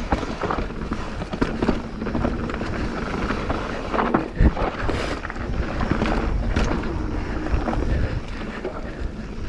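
Mountain bike ridden down a dirt singletrack: steady tyre noise, irregular rattles and knocks from the bike over rough ground, and wind on the microphone, with one sharp knock about four and a half seconds in.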